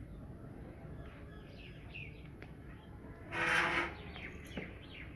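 Small birds chirping over and over, with one short, loud, harsh call about three and a half seconds in.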